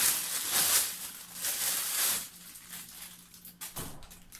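Clear plastic packaging bag crinkling and rustling as it is pulled open and a garment is taken out. Loudest in the first two seconds, then dropping to a few soft rustles and clicks.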